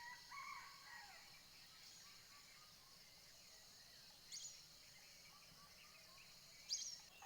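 Faint rural outdoor ambience: a steady high insect drone with scattered bird calls, a few falling calls in the first second and short high chirps about four and a half and seven seconds in.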